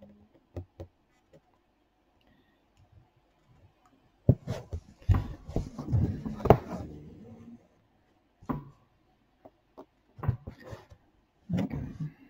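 Knocks, clicks and rustles of an embroidery hoop and fabric being handled and shifted close to the microphone. They start about four seconds in, are loudest in a cluster over the next three seconds, and come again in short bursts near the end.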